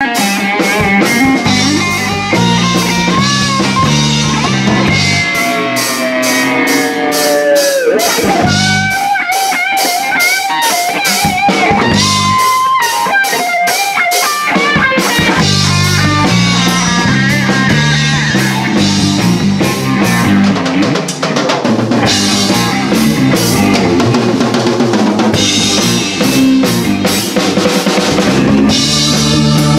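Live rock band playing: electric guitar, bass guitar and a drum kit keeping a steady beat, with notes sliding and wavering in pitch in the first half.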